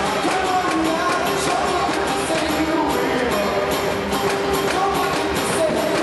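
Recorded music with singing played over an ice arena's PA system during a stoppage in play.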